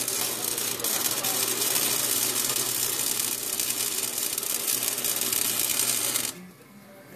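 Electric arc welding on a car's exhaust pipe: the arc gives a steady crackling hiss that cuts off suddenly about six seconds in.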